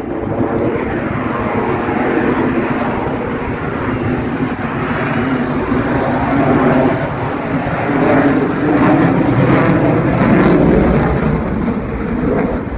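Jet noise from an F-22 Raptor's twin Pratt & Whitney F119 turbofan engines as it flies its display overhead, growing louder to a peak past the middle and easing off near the end.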